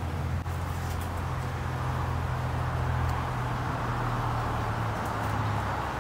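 Steady rushing of water from a small waterfall close by, with a low steady hum underneath.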